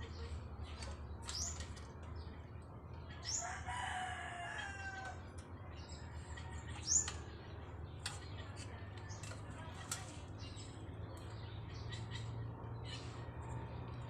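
Birds chirping in short, sharp, rising calls, with a rooster crowing once about three seconds in, over a low steady hum. A few sharp clicks come in the second half.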